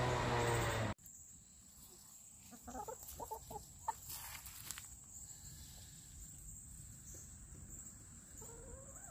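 A chicken clucking in a short run of soft calls a couple of seconds in. Before that, a steady low hum cuts off abruptly about a second in.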